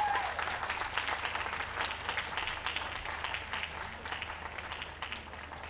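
Ringside crowd applauding, the clapping slowly dying away.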